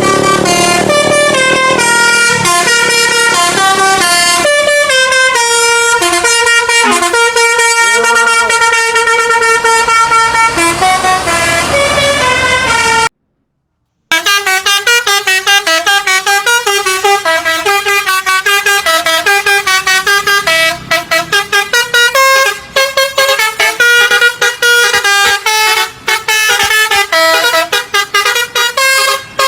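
Bus telolet horns of the Basuri type, multi-trumpet horns playing tunes in loud stepped notes. The sound cuts out for about a second around the middle, then a faster tune of quick-changing notes follows.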